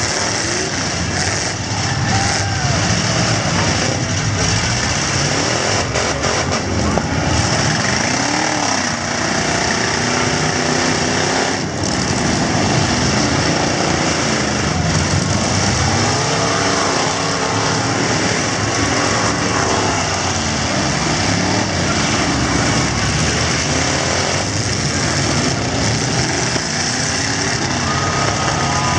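Several V8 pickup trucks and SUVs in a demolition derby running hard, their engines revving up and down over and over, with a few sharp bangs of trucks colliding.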